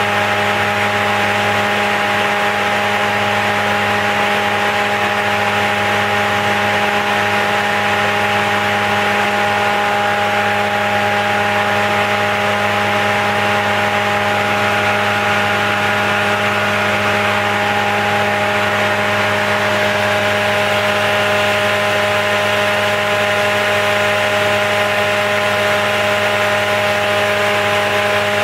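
Spindle moulder running free at a steady 6000 rpm, its 220 mm steel profiling head spinning without cutting: an even hum with several steady tones and no change in speed.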